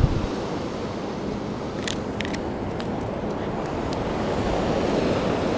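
Ocean surf and wind on the microphone: a steady rushing that swells a little near the end, with a few faint sharp clicks in the middle.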